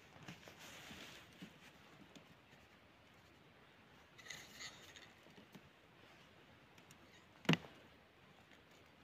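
Faint rustling and small clicks of hands handling ice-fishing tackle, with a brief high squeak about four and a half seconds in and a single sharp knock about seven and a half seconds in.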